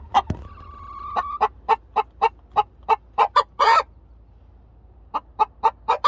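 Hens clucking in rapid, agitated runs of short clucks, about four a second, with one drawn-out note about half a second in and a louder harsh squawk a little past the middle; the clucking stops for about a second, then starts again near the end. The clucking is one hen's upset scolding of another and the other hen's answering clucks.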